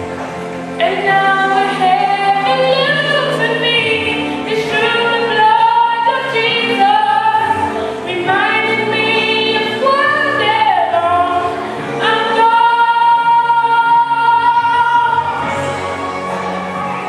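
Voices singing a gospel song, with a long held note about twelve seconds in.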